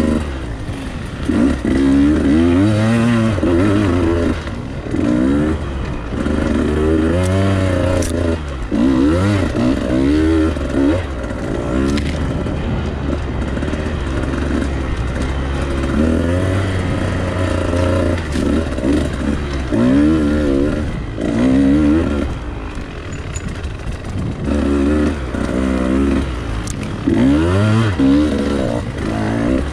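Two-stroke dirt bike engine revving up and down over and over, the pitch rising and falling every second or two as the throttle is worked.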